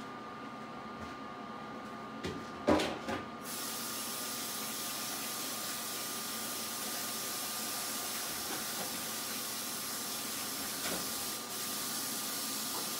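A few knocks about two to three seconds in, then a steady hiss starts abruptly and keeps going.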